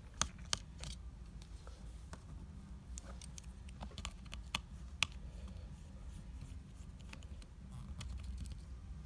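Small sharp clicks and light ticks of a precision screwdriver and tiny screws being worked out of an iPad mini 2's LCD shield, a few louder clicks near the start and about halfway, over a steady low hum.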